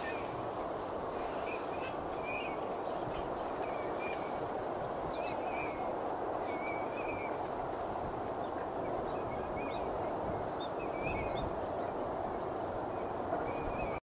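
Eurasian teal calling: many short, high calls, repeated every second or so, over a steady low rumble of background noise.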